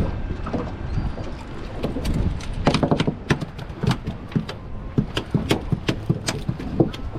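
Irregular sharp knocks and clatter of handling on a small fishing boat, coming thicker from a few seconds in, over a steady low rumble.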